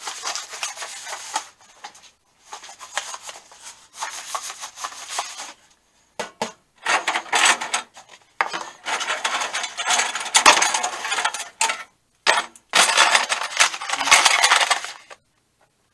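A pile of removed tool-box drawer guides being gathered by hand and dropped into a plastic container, clattering and clinking together in about seven short bouts with brief pauses between them.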